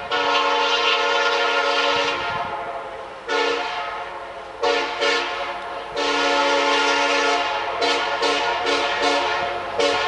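Nathan K5LLA five-chime air horn on a Norfolk Southern SD70M-2 locomotive blowing a chord in a series of blasts. A long blast of about two seconds opens the series, two shorter blasts follow, then another long one near the middle and a run of quick short toots near the end.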